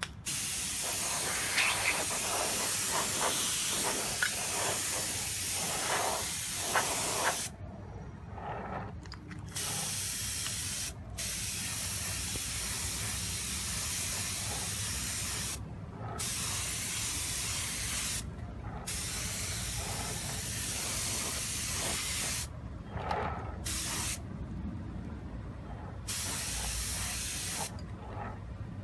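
Compressed-air spray gun spraying hyper-chrome (mirror chrome) paint: an even hiss in about seven passes of a few seconds each, with short breaks between them.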